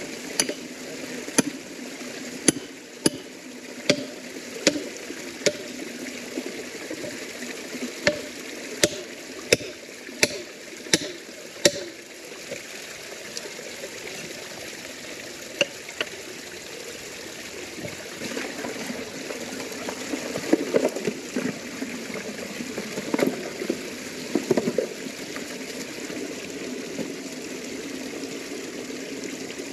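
Pond water running steadily out through an old brick overflow structure where bricks have been broken out. A run of sharp knocks, a little more than one a second, sounds over the first twelve seconds or so.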